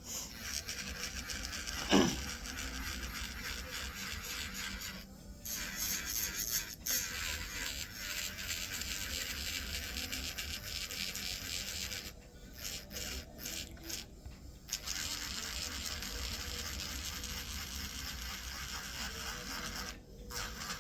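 Small electric nail drill buzzing against the nail, grinding off the remaining gel polish. It stops and restarts several times, with a brief falling squeal about two seconds in.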